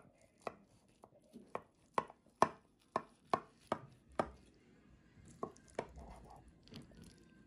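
Kitchen knife cutting through a baked lasagne in a glass baking dish: a run of sharp clicks, about two a second, as the blade chops down and meets the dish, thinning to a few scattered clicks after about four seconds.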